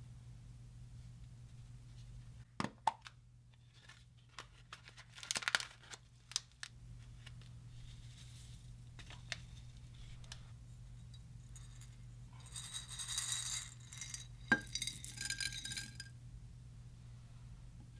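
Clear slime and makeup being handled: a few sharp clicks and taps, then a few seconds of crackly, sticky tearing noise with one sharp click in the middle.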